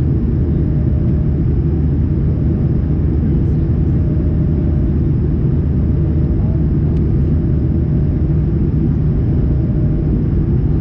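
Steady cabin noise in an Airbus A220-100 airliner in flight, mostly a low, even rumble from its Pratt & Whitney PW1500G geared turbofan engines and the airflow, with a faint steady hum over it.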